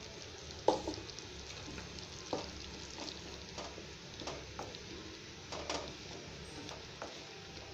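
A spoon stirring thick eggplant tamarind gravy with freshly added ground paste in a steel pan, knocking and scraping against the pan about once a second over a steady sizzling simmer. The loudest knock comes just under a second in.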